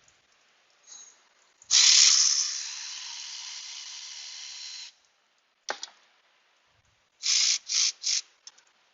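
A hissing spray that starts sharply, loud at first, then settles and runs about three seconds before cutting off. A click follows, then three short hisses in quick succession.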